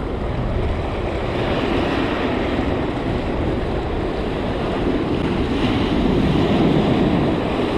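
Ocean surf breaking and washing up a sandy beach, with wind on the microphone. The rush grows a little louder partway through as a wave comes in.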